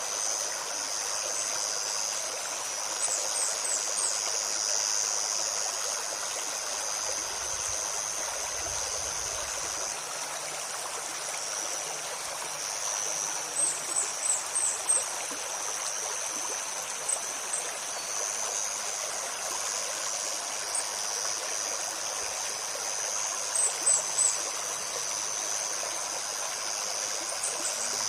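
Shallow forest stream flowing and babbling steadily, with a steady high insect drone above it. Several small clusters of short, high bird chirps break through, the loudest moments.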